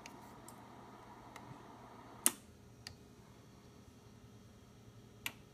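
Sharp clicks from a Kenwood TS-520S transceiver's front-panel controls: one loud click about two seconds in, after which the steady background hiss drops away, as when the rig is switched from receive to send. Two fainter clicks follow, the last near the end.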